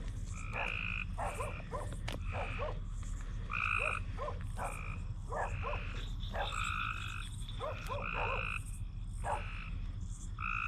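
A chorus of frogs calling: a repeated call about half a second long, recurring every second or so, over many quicker short rising chirps.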